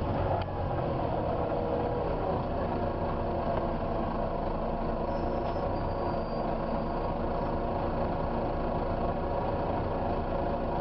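Volvo B9TL double-decker bus running, heard from inside, with the loud whine and hiss of its cooling fan, the sound that earns it the "hoover" nickname. The whine dips slightly in pitch just at the start, then holds steady over a low engine rumble.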